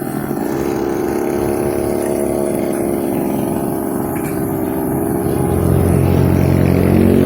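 Petrol brush cutter engine running steadily, growing louder about five seconds in.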